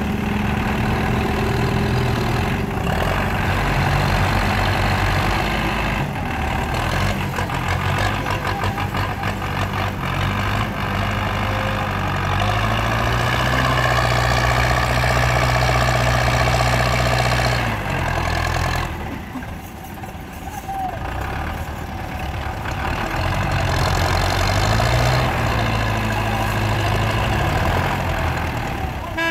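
Two diesel farm tractors running hard under heavy load, pulling a sugarcane-laden trolley up a ramp. The engine note climbs and holds for several seconds, eases off and quietens about two-thirds of the way through, then picks up again.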